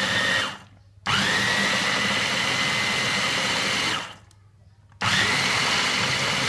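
Portable capsule blender's motor run in pulses by pressing down on its lid while blending fruit with water. A run stops about half a second in; the motor starts again about a second in with a rising whine that settles to a steady high tone, stops near four seconds, and starts again about five seconds in.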